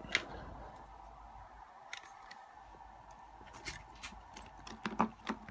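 Handling noise at a workbench: a few scattered small clicks and taps, two of them close together near the end, as a small brass lock cylinder and tools are moved about, over a faint steady hum.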